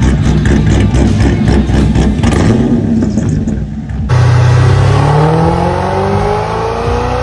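Holden Commodore's LS V8 accelerating, its exhaust note rising steadily in pitch after an abrupt cut about four seconds in. Before the cut comes a loud, rhythmic pulsing sound.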